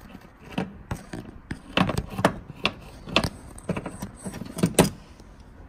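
Irregular metallic clicks, knocks and scrapes of a ratchet on a long socket extension being worked against a bolt behind a car's plastic inner wheel-arch liner, about eight to ten sharp strikes, the loudest near the end.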